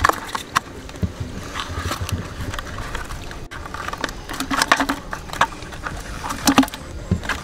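Fishing net handled by hand, with irregular rustling and crackling and scattered clicks and taps, a few louder near the end, as a tilapia is worked free of the tangled mesh.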